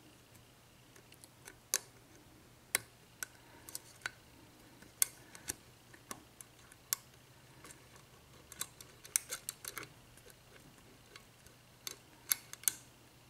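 Irregular small metallic clicks of a hook pick lifting the spool, mushroom and serrated pins of a Sargent six-pin cylinder held under tension, with pins clicking as they set into a false set. The clicks are sparse at first and bunch up after about nine seconds.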